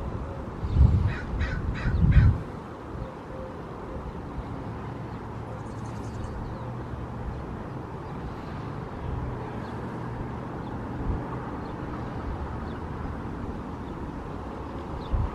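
Wind buffeting the microphone in loud gusts, with a bird calling four times in quick succession about a second in, then a steady rush of wind.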